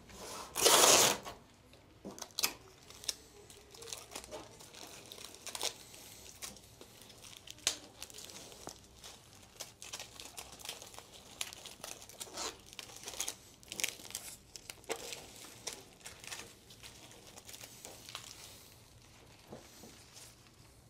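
Adhesive tape pulled off a desk tape dispenser with a short loud rip about a second in, then crinkling rustles and light clicks of flower stems and leaves being handled and pushed into a large bouquet.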